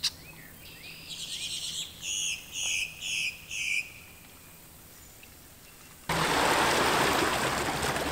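A bird calling in a short run of clear, evenly spaced chirps, about four in a row, then falling quiet. About six seconds in, a steady rushing noise starts suddenly.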